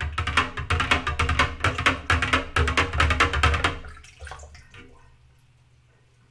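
Metal measuring cup stirring salt into water in a glass pitcher, clinking rapidly against the glass as the brine is dissolved. The clinking stops about four seconds in and is followed by a few light taps.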